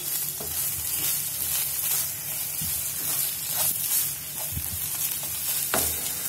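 Khoya sizzling as it roasts in a non-stick frying pan, turned and scraped over and over with a wooden spatula. The sizzle is the ghee the khoya has begun to release, the sign that it is nearly roasted.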